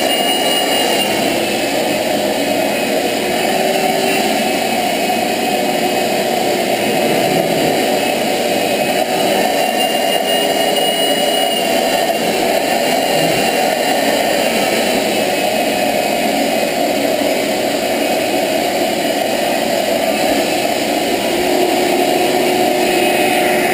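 Wet/dry shop vacuum running steadily, its floor nozzle being drawn over a cat's fur.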